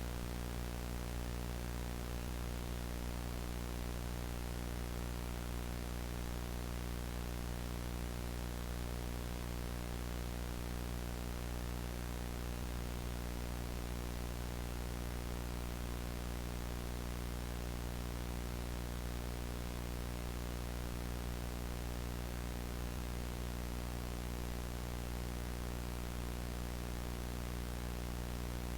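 Steady buzzing electrical hum with a layer of static hiss over it, unchanging throughout: the droning background of a mock emergency broadcast between alert messages.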